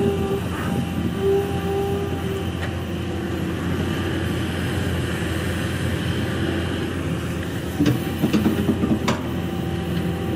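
Kobelco SK200 hydraulic excavator working: its diesel engine runs steadily under load while a hydraulic whine comes and goes as the boom, arm and bucket move. About eight seconds in there is a quick run of knocks and scraping as the bucket bites into the earth and stones.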